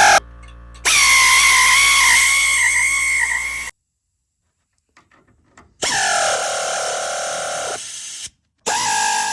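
Power driver spinning nuts down onto the airbag bracket bolts in three runs of motor whine. In the second run the pitch sags as a nut snugs up.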